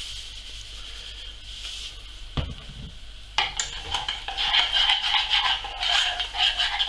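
A single knock about a third of the way in. From about halfway, a spoon stirs thick pea puree in a stainless steel saucepan, scraping against the pan in an uneven, continuous stir.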